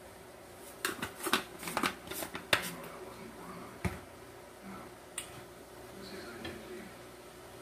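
Seasoned-salt shaker shaken over a skillet: a quick run of sharp rattling taps for about two seconds, then a couple of single clicks. Softer scraping of a spatula stirring the ground turkey in the pan near the end.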